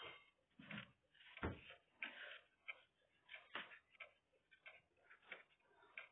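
Near silence with faint, irregular clicks and taps, two of them sharper, about one and a half and three and a half seconds in.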